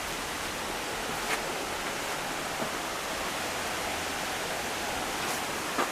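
Steady rushing hiss of falling water, with two faint clicks, one about a second in and one near the end.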